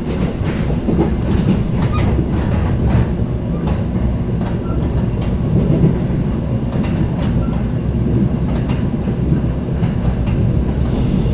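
Passenger train running at speed, heard from inside the carriage: a steady low rumble of wheels on rails, with sharp clicks and knocks at irregular intervals.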